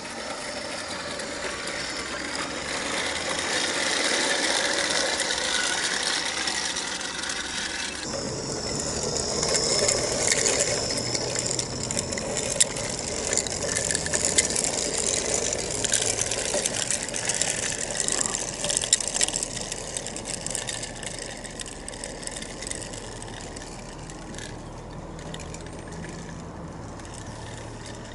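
A battery-powered 16mm scale model locomotive running on the track, its gearhead motor and crossed helical gears whirring, with the wheels of its train of small wagons clicking and rattling along the rails. It grows louder as it nears and fades as it moves away near the end.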